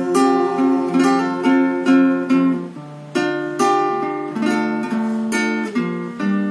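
Acoustic guitar strummed in chords, about two strums a second, with a short break about three seconds in.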